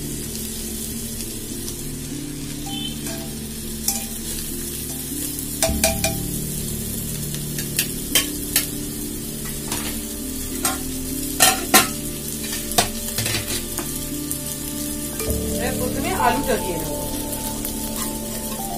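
A utensil tapping and scraping against a nonstick pressure cooker in short, scattered clicks while par-boiled basmati rice is spread in it, over a steady sizzle of ghee heating beneath the rice.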